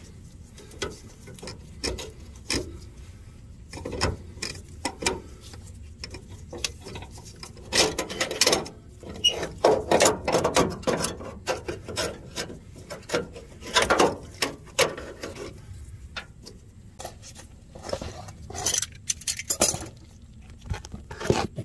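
A metal fuel line and mechanical fuel pump scraping, rubbing and knocking against the engine and chassis as they are worked down and out from under a van. Irregular scrapes and clicks, in denser clusters about halfway through and again near the end.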